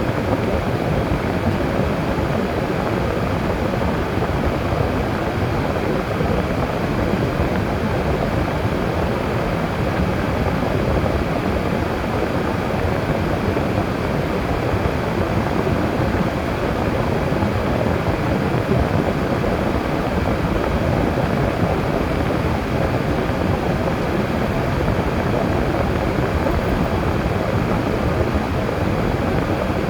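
Car driving at a steady speed: a continuous low rumble of engine and tyre road noise.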